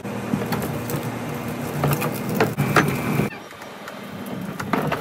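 Knocks and scrapes of a wheeled plastic rubbish bin and bundled packing being handled, over a steady low hum; the sound changes abruptly about three seconds in.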